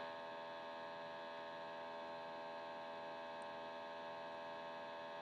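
Steady faint electrical hum with light hiss, made of several fixed tones.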